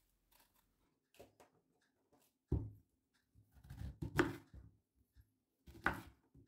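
Kitchen knife cutting a peeled pear on a wooden cutting board: three knocks of the blade on the board, about two and a half, four and six seconds in, with a few lighter ticks between.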